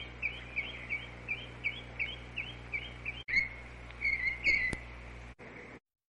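A songbird singing a quick series of about ten repeated slurred whistled notes, about three a second, then a different, busier phrase after a short break, over a steady background hum.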